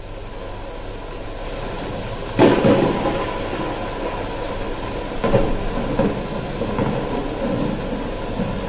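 An MP3 track playing through the Trinity PA-75X keyboard's built-in speakers: a rumbling, noisy passage that swells in, with a sudden loud hit about two and a half seconds in and a few more hits later.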